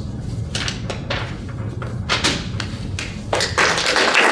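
A few light knocks over a low steady room hum, then audience applause breaks out about three and a half seconds in as a reading of a poem ends.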